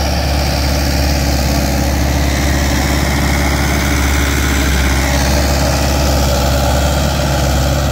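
Mahindra 575 XP Plus tractor's four-cylinder diesel engine running steadily under load, pulling a cultivator weighed down by men standing on it. The engine speed holds even without bogging down.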